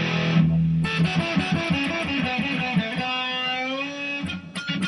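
Custom Ibanez Fireman electric guitar played on the bridge pickup with the tone knob rolled down, giving a really deep sound. A chord is struck at the start, then a run of single notes ends on a held note, followed by a few short clicks near the end.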